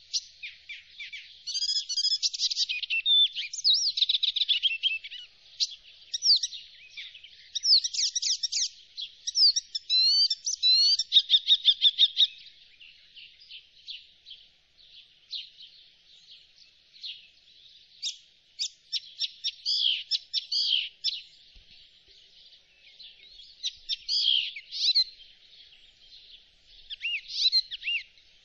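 Icterine warbler singing: a long, fast, unbroken run of varied high-pitched chattering notes and whistled glides. It is loudest for the first dozen seconds, then softer, with a few brief louder outbursts.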